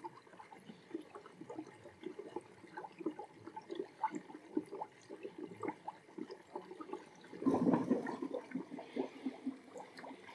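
Water and trapped air spluttering out of a purge hose held under water in a bucket, a stream of irregular bubbling and gurgling, with a louder surge of bubbling about seven and a half seconds in. The bubbling is the sign that air is still being purged from an underfloor heating circuit; a steady flow with no burbling means the loop is full.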